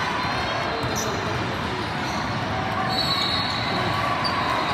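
Basketball game sound in a gym: a ball bouncing on the court amid background voices, with a high squeak about three seconds in.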